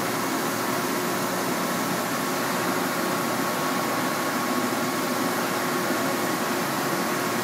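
Steady hum and hiss of running shop machinery, with a faint high tone held throughout.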